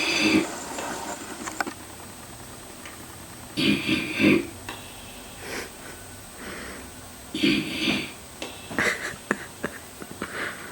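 A man snoring in his sleep, one rough snore about every four seconds (three in all), with softer breathing between them.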